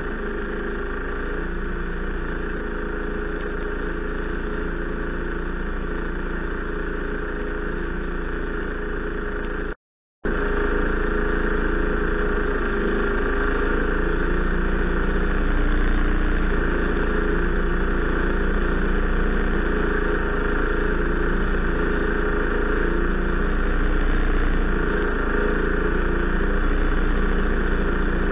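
A powered ice auger's small gasoline engine runs steadily as it bores through about 30 inches of lake ice. The sound cuts out completely for a moment about ten seconds in.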